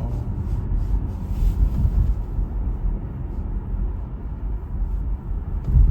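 Car on the move: a steady low rumble of road and engine noise, with a brief louder bump near the end.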